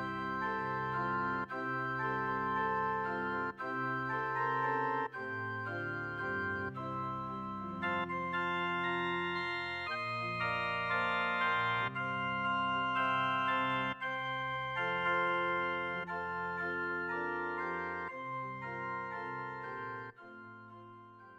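Electronic keyboard played with an organ sound: slow, held chords, fading out near the end.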